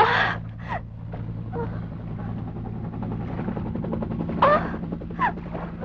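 A baby crying in short wails a few times over a steady low hum.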